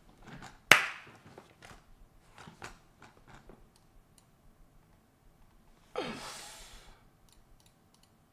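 A man's breathless laughter: one sharp loud thump about a second in, then faint short gasps, and about six seconds in a long breathy exhale falling in pitch, like a sigh after laughing hard.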